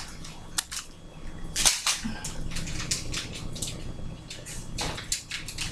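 A utensil scraping and clicking against a skillet as noodles and scrambled eggs are stirred: an irregular run of sharp clicks and short scrapes over a low steady hum.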